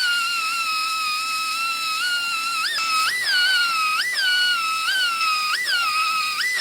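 High-speed pneumatic grinder whining, its pitch jumping up and sagging back about once a second as it is pressed into and eased off the panel, grinding through the outer layer of sheet metal at the spot welds.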